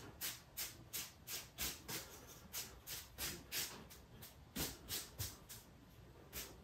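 Cheap disposable bristle paintbrush dry-brushing almost-dry paint across carved insulating foam: faint, scratchy swishes at about three strokes a second.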